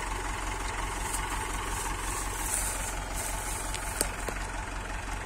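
Massey Ferguson tractor's diesel engine idling steadily, with one sharp knock about four seconds in.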